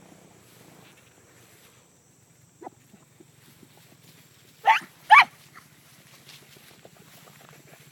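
Beagle barking: a faint short yelp, then two loud barks about half a second apart around the middle.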